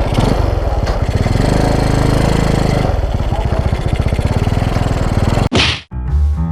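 Honda Wave 125's single-cylinder four-stroke engine running loudly with rapid firing pulses, revving up and back down about two seconds in. About five and a half seconds in, a short loud rushing noise cuts it off, and music starts near the end.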